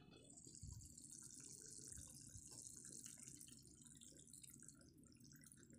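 Faint bubbling and hiss of a fish curry simmering in a pan; coconut milk is poured in near the end.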